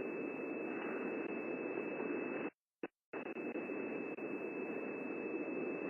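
Steady hiss of electronic static with a faint, thin high tone running through it, cutting out completely for about half a second roughly two and a half seconds in.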